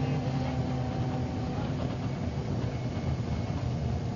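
MCW Metrobus double-decker's diesel engine running, with a steady rumble underneath. Its pitched engine note fades away about a second and a half in while the rumble carries on.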